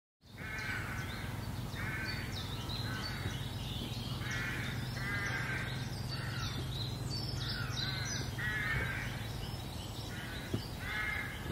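Crows cawing repeatedly, about one harsh call a second, with fainter, higher bird chirps and a steady low hum underneath.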